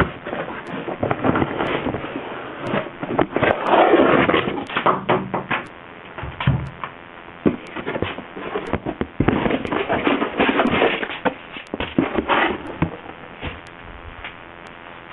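Irregular knocks, bumps and rustling as things are handled and moved about, busiest in two stretches.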